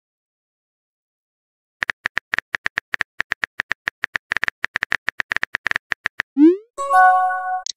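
Phone keyboard typing clicks from a texting-story app: a quick even run of about six taps a second for roughly four seconds. Then a short rising swoosh as the message is sent, followed by a brief electronic chime of several steady notes.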